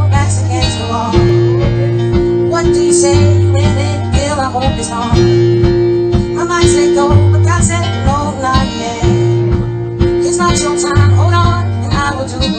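Intro music: a song with guitar and a singing voice over a steady beat, with deep held bass notes that change about every two seconds.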